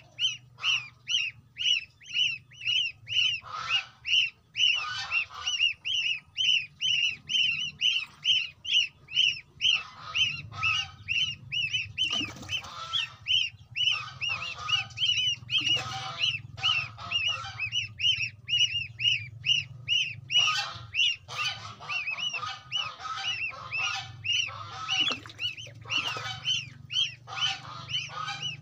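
Goslings peeping: a rapid, high-pitched run of calls several times a second, joined at intervals by rougher, lower calls from others in the group, over a faint low hum. These are the contact calls that young geese make to keep in touch with their brood-mates and mother.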